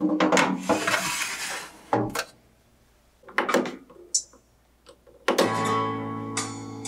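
Metal baking tray scraping as it slides into a BALMUDA countertop oven, ending in a knock about two seconds in, then clicks as the oven's dial is turned. About five seconds in the oven plays its start sound, a ringing guitar-like strum that holds and fades: the bake has started.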